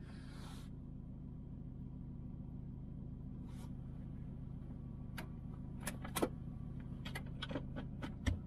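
Steady low hum of the Subaru Forester's flat-four engine heard from inside the car's cabin. In the last few seconds, a string of sharp clicks and knocks.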